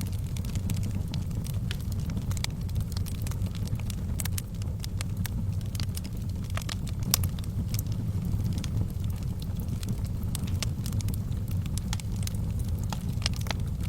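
Fire in a fireplace crackling: irregular sharp pops and snaps over a steady low rumble of burning, with one louder pop about seven seconds in.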